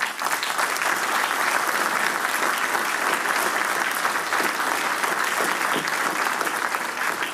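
Large audience applauding: dense, steady clapping that breaks out suddenly and holds at an even level.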